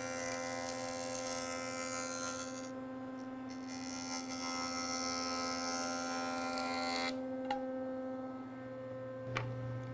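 Jet jointer running with a steady motor hum while its knives cut the edge of a board in one pass; the cutting noise drops out for under a second about three seconds in, where the knives cannot reach the hollow middle of the edge, then resumes on the far end and stops about seven seconds in. After that only the motor hum is left, with a couple of light knocks near the end.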